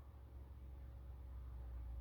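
Faint background noise: a steady low rumble with a thin steady hum above it, and no distinct event.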